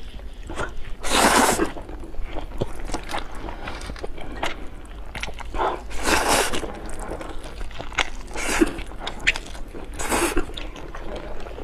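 Close-miked eating of noodles with sour pickled long beans: steady chewing and crunching with small wet clicks, and three louder slurps about four seconds apart.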